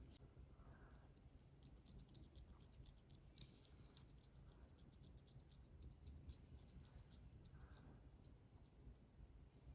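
Faint scratching of artificial fingernails on a scalp through the hair: quick, dry strokes, several a second, that go on without a break.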